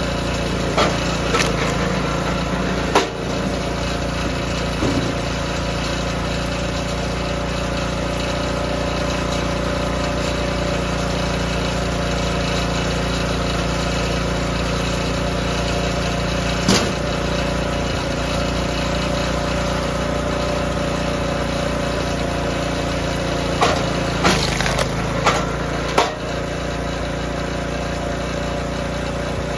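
DR K28 Pro log splitter's small gas engine running steadily, with a few sharp wooden knocks as split pieces and logs are handled on the splitter: a couple near the start, one in the middle, and a cluster near the end as a big round is set on the beam.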